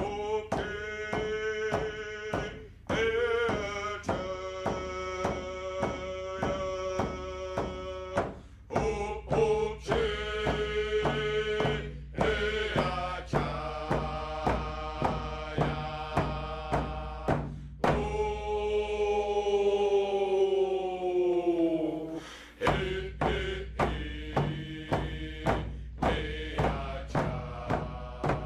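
Music: a chanted melody in long held notes over a steady drumbeat of about two beats a second. About two-thirds of the way through, the drum stops briefly while one long note slides down in pitch.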